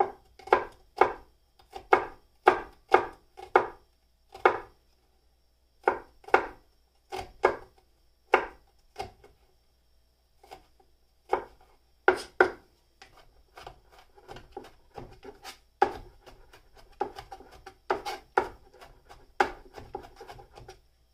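Chef's knife mincing garlic on a plastic cutting mat over a bamboo board: sharp chopping knocks about twice a second, with short pauses. About two-thirds through, they turn into quicker, lighter strokes.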